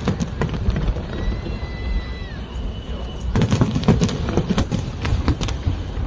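Fireworks cracking and popping in quick, irregular succession over the steady chatter of a crowd. A short high whistle sounds about a second in, falling slightly as it ends.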